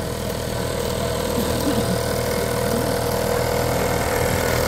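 Small two-stroke outboard motor, a 1978 2 hp Johnson, running steadily as the boat moves along, its drone holding an even pitch and level.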